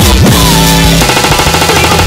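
Loud electronic music with heavy distorted synths, steep dropping pitch sweeps at the start and again near the end, and a held chord in between.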